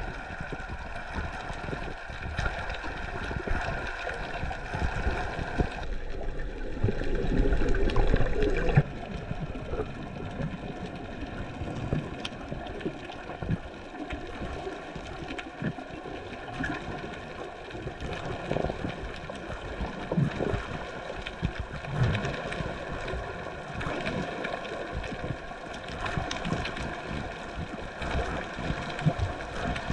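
Underwater sound picked up by a snorkeler's camera: moving water with a steady hum of several tones and faint scattered clicks. A louder rush of water comes from about six to nine seconds in.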